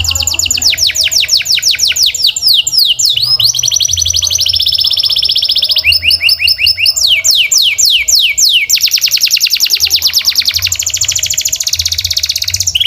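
Domestic canary singing a long, loud run of rapid trills: fast strings of repeated notes and quick downward sweeps, switching from one trill to the next every second or two without pausing.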